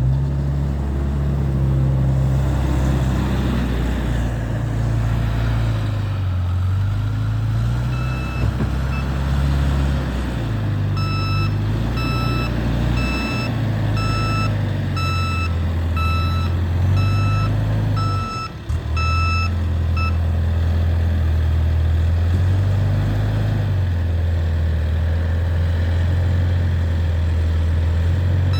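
XCMG SR740RU skid-steer loader's engine running under changing throttle, its pitch rising and falling as it works. From about eight seconds in, a reverse alarm beeps steadily for roughly twelve seconds while the machine backs up.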